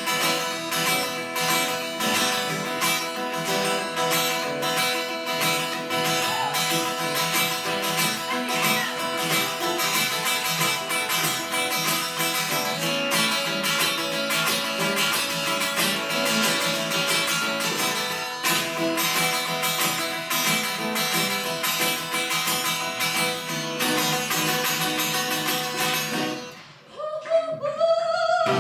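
Acoustic guitar strumming a steady rhythm through an instrumental break in a live country song. The playing drops away briefly near the end, then picks up again.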